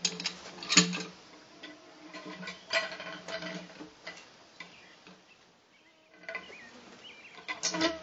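Cant hook biting into and levering a big spruce log on a sawmill bed: irregular sharp knocks and clanks of steel on wood and on the mill's metal frame, loudest about a second in and again near the end, over a low buzzing hum that comes and goes.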